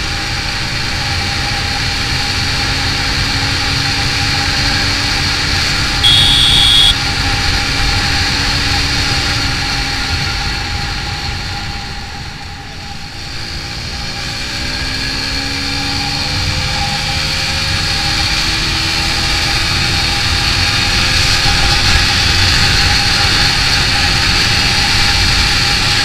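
Carburetted motorcycle engine running at road speed, with wind rushing over the microphone. About six seconds in, a horn beeps for just under a second. Around the middle the engine eases off, then pulls again with its pitch rising as the bike speeds up.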